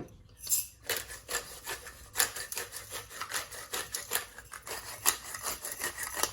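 Pepper mill being twisted to grind pepper: a quick run of short grinding strokes, about three or four a second.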